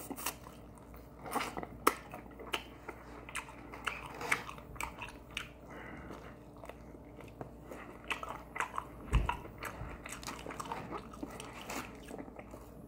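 A person biting and chewing crispy Korean fried chicken wings close to the microphone: irregular crunches of the fried coating and mouth chewing sounds. A single low thump about nine seconds in.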